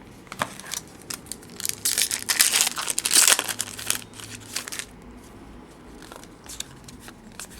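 Crinkling and tearing of a 2009 Topps UFC card pack wrapper as it is opened, loudest in a burst of crackling about two to three and a half seconds in, with light clicks of handling around it.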